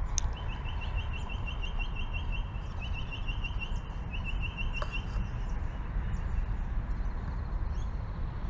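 A bird singing a rapid trill of short high notes, about six a second, in three runs over the first five seconds, above a steady low rumble.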